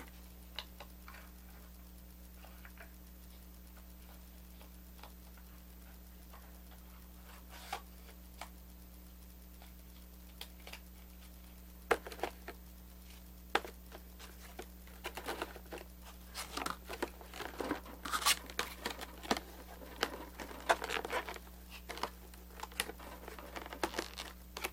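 Handling noises of cards and packaging: crinkling, rustling and small taps. They are sparse for the first half, then grow busy and near-continuous from about halfway, over a steady low electrical hum.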